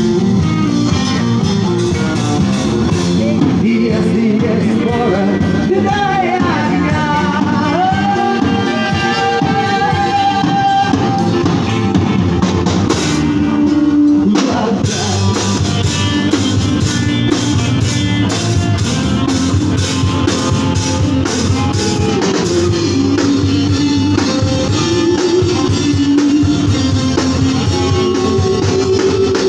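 Street rock band playing live: an amplified electric guitar lead over drums, with a brief break about halfway through before the band comes back in.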